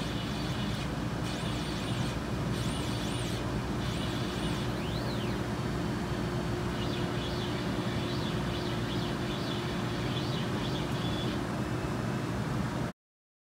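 Epilog Fusion M2 laser cutter running as it cuts circles in corrugated cardboard: a steady machine noise and hum, with the motor whine rising and falling in pitch in a run of arcs as the head traces each circle. The sound cuts off suddenly near the end.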